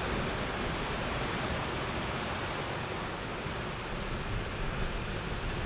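Steady wash of surf breaking on a beach, with wind noise on the microphone.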